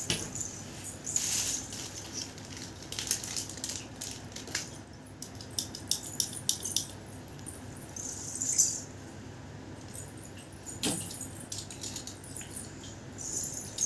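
Oxidised-silver earrings with dangling metal beads clinking and jingling in short spells as they are handled on a display string. A dull knock comes near the end.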